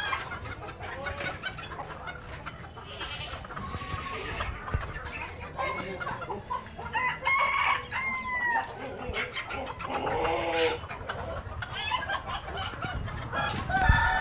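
A flock of fancy chickens clucking and calling in short bursts, with roosters crowing now and then.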